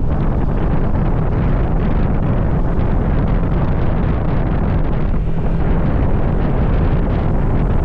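Loud, steady wind buffeting the microphone of a camera on a moving vehicle, with a low engine and road rumble underneath.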